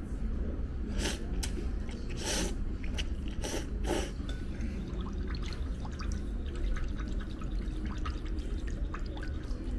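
A person slurping tsukemen noodles dipped in a thick spicy sauce, several short slurps in the first four seconds, then light clicks and scrapes of chopsticks stirring the sauce in a ceramic bowl, over a steady low hum.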